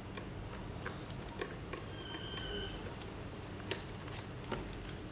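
Light, irregular clicks and taps of plastic parts as the Harman Kardon Onyx speaker's housing is handled and pressed back together, with one sharper click a little past halfway.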